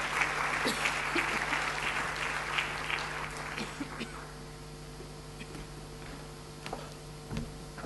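Audience applauding, a dense patter of clapping that dies away about four seconds in, leaving only a few scattered knocks.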